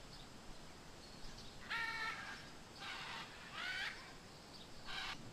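Red-and-green macaw giving four short, harsh squawks about a second apart, over a faint steady background hiss.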